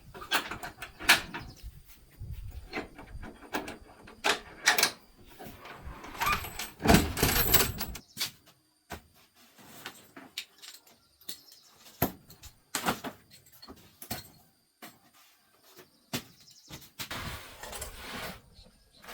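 Irregular knocks and clanks of tools and parts being handled, scattered over the whole stretch, with a longer rattling spell about seven seconds in and a few sharp knocks later.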